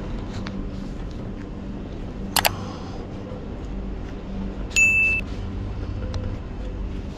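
A steady low rumble, with a sharp metallic clink about two and a half seconds in and a short, high electronic beep about five seconds in.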